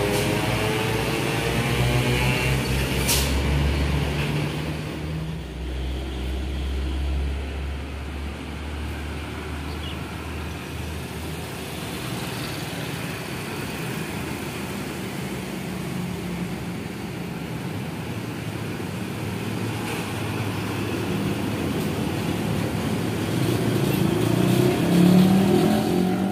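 Roadside traffic on a highway: a light truck's diesel engine and motorcycles pass at the start, the engine note falling and its drone fading over the first ten seconds. Steady tyre and traffic noise follows, then another vehicle approaches with rising engine pitch and passes, loudest near the end.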